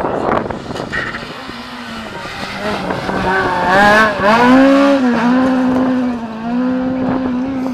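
Suzuki rally car's engine at full revs as it passes close by through a corner and pulls away. The revs climb, drop sharply about four seconds in, then rise again in steps. The car is loudest as it goes by, about four to five seconds in.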